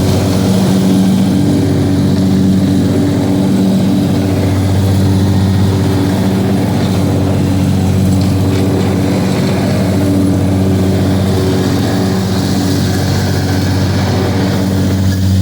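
A motor running steadily at a constant speed, a low hum that holds one pitch.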